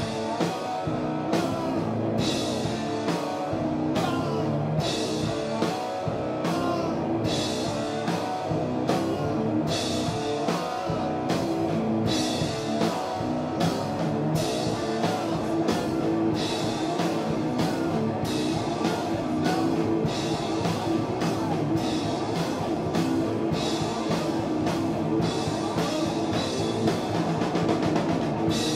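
A drum-and-guitar duo playing heavy rock live: heavily distorted electric guitar over a Yamaha drum kit, with cymbal crashes landing about once a second.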